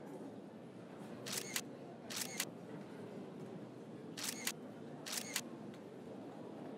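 Camera shutter firing in quick double clicks: two shots about a second apart, then two more a couple of seconds later, over faint steady background noise.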